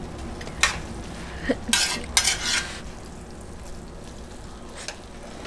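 A person tasting hot food from a fork: a click, then two short breathy hisses about two seconds in, and a faint click near the end, over low room noise.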